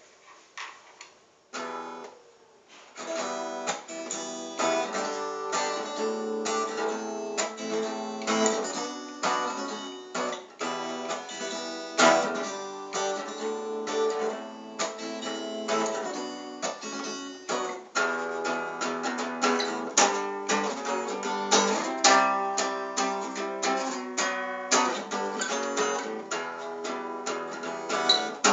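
Acoustic guitar played with steady rhythmic strumming, starting after a few faint taps about two seconds in.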